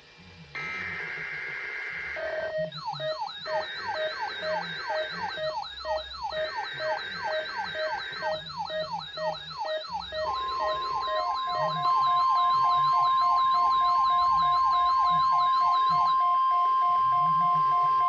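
Several NOAA weather radios sounding an emergency alert together. Three short bursts of buzzing digital header tones are heard. Under them, the radios' own warbling siren alarms and a beep about twice a second start about two seconds in. About ten seconds in, a steady single-pitch weather alert tone joins, and it gets louder a couple of seconds later.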